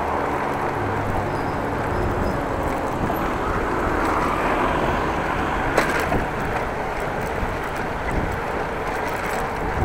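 Wind buffeting an action camera's microphone while cycling, with steady rolling rumble. A low hum fades out in the first second or so, and there is a single sharp click just before six seconds in.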